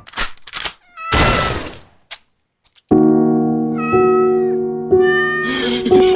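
Kittens mewing over background music. A few short noisy swishes come first, then a brief gap; held music chords start about three seconds in, with high, bending mews on top that grow into many rapid mews near the end.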